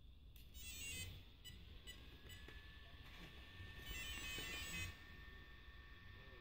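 Faint electronic beeping: two short spells of rapid high chirps, about half a second in and about four seconds in, with a faint steady high whine between and after them.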